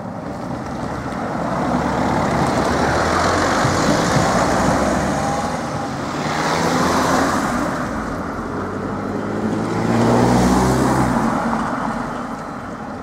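Road vehicles driving past close by, one after another: a car, a van and another car. Engine and tyre noise rises and fades three times, with the loudest pass about ten seconds in.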